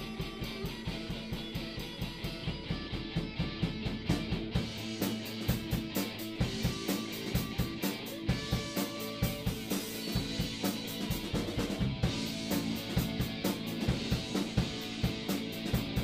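Live rock band playing: electric guitars and bass guitar over a drum kit keeping a steady beat. The drumming fills out with more high, crashing sound about four and a half seconds in.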